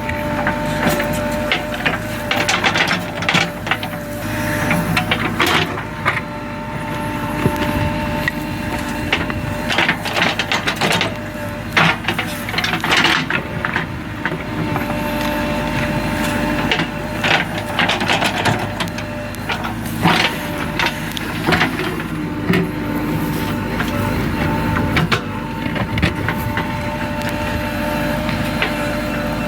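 JCB 3DX 49 hp backhoe loader's diesel engine running steadily with a constant whine, while frequent short clanks and scrapes break in as it digs.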